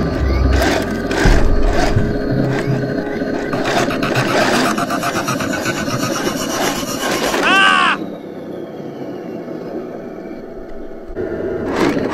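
Remote-control model tank's tracks grinding, scraping and clattering over dry dirt and stones, with a brief squeal about two-thirds in. The sound then drops quieter for a few seconds before the grinding comes back near the end.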